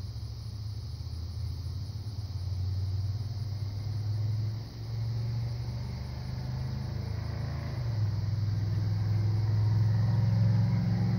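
A motor vehicle's engine running as a steady low hum, shifting in pitch twice and growing louder toward the end.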